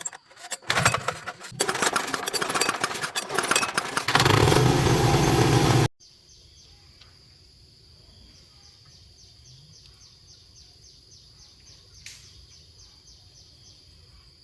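Single-cylinder diesel engine of a 173F mini tractor clattering as it is cranked, then catching and running loudly and steadily for about two seconds before cutting off abruptly near the middle. After that, only a faint steady high insect buzz with regular ticks remains.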